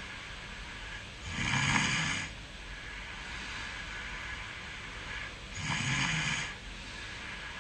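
A person snoring in sleep: two snores about four seconds apart, each lasting about a second.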